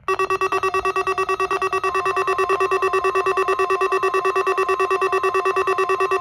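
NOAA Weather Radio warning alarm sounding for a weekly test: a loud, steady electronic alert tone made of several pitches at once. It starts abruptly and pulses rapidly in loudness.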